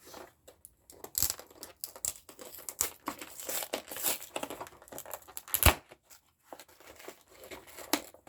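Packaging on a boxed trading-card deck being torn open and crinkled: irregular crackling and tearing, with a sharp click about five and a half seconds in.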